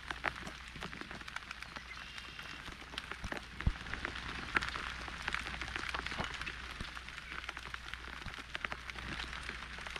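Steady rain, with many separate drops striking close by in quick, irregular clicks.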